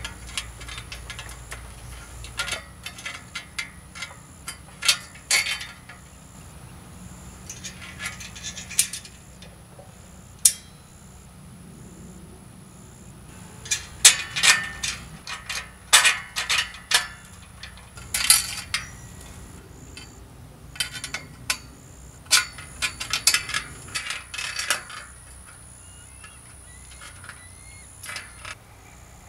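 Metal clinks and clicks, in bunches of quick taps with pauses between them, as bolts and brackets are fitted by hand to the metal frame of a solar tracker.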